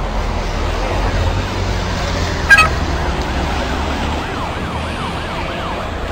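Police siren yelping in fast rising and falling sweeps, about three a second, over the low rumble of passing vehicle engines, with one short sharp blip about two and a half seconds in.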